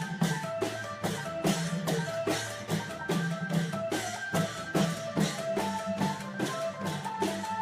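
Isan klong yao long-drum ensemble playing a quick, even beat of drum and cymbal strikes, about four a second, under a held melody line.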